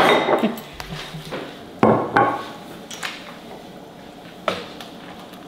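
Kitchenware clinking as soup is served: a metal ladle, ceramic bowls and a steel stockpot knocking together in a few separate sharp clinks, the loudest about two seconds in.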